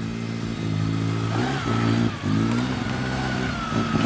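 1999 Astra coupe's engine running steadily, freshly back to life after a rebuild, its note shifting briefly twice in the middle. A faint, thin wavering whine sits above the engine hum.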